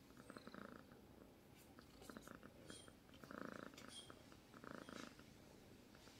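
Domestic cat purring faintly while asleep, a soft pulsing rumble that swells and fades about four times, roughly every second and a half.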